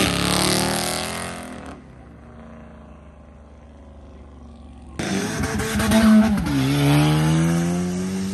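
Dodge Challenger accelerating hard past, its engine fading away over about two seconds. About five seconds in, another car's engine comes in loud under hard acceleration, dropping in pitch once at a gear change and then climbing again.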